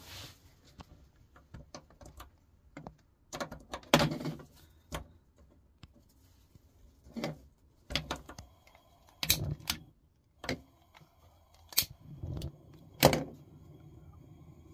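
Repeated sharp clicks of a piezo utility lighter, with a few heavier knocks of handling, as a gas stove burner is lit: the burner takes many clicks before catching, and a faint steady hiss of the gas flame follows near the end.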